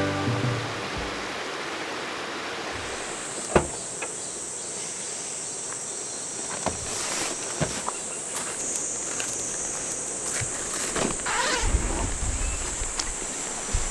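A high, steady insect drone sets in about three seconds in over a constant rush of stream water, with a few sharp knocks scattered through.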